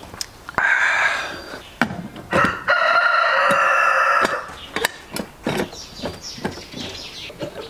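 A rooster crows in two parts, the second a long held note of nearly two seconds. Sharp metal clicks and clanks come from the lid of a pressure cooker being fitted and locked.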